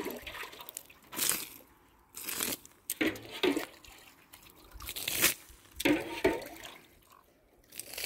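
Liquid splashing out onto dry ground in several short spurts with quiet gaps between.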